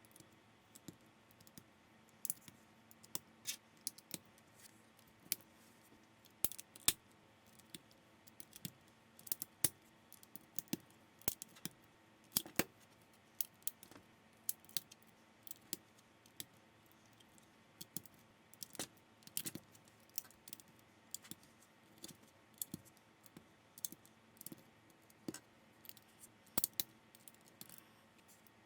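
Plastic building bricks being handled and snapped together, a run of irregular sharp clicks and small clatters.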